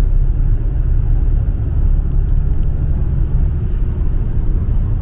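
Loud steady low rumble with no distinct events.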